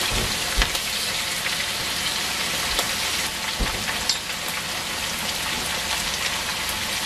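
Green and wax beans sizzling steadily as they stir-fry in hot oil in a nonstick wok on high heat. Chopped onion goes into the pan partway through, with a few light knocks.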